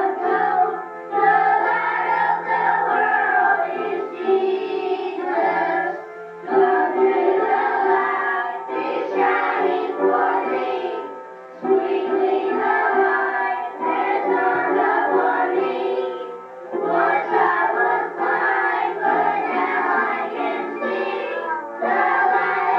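A group of women's and children's voices singing a Christmas song in phrases of a few seconds with short breaks between, over a steady accompaniment.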